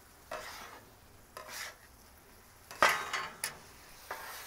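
Metal spatula scraping and clanking on the steel cooktop of a Blackstone griddle as diced apples are stirred and pushed together: about five separate scrapes, the loudest a sharp clank about three seconds in.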